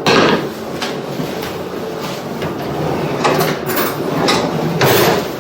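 Hands working a soft raw ground-meat and bulgur kibbeh mixture, pressing and patting it into a metal baking pan: a run of wet handling and patting noises, with a few louder swells about three to five seconds in.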